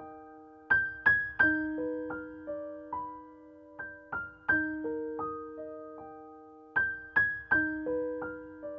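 Background piano music: a soft melody of single notes that strike and slowly fade, a short phrase repeating every three seconds or so.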